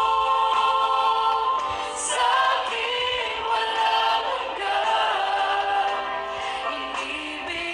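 Choir singing a Tagalog gospel song, with long held notes.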